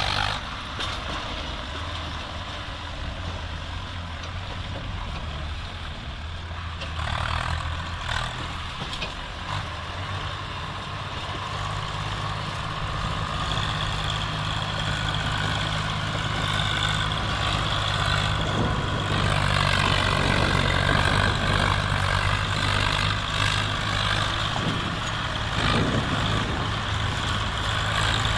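Swaraj 744 FE tractor's three-cylinder diesel engine running steadily under load, pulling a trolley heavily laden with logs. It grows louder from about the middle on.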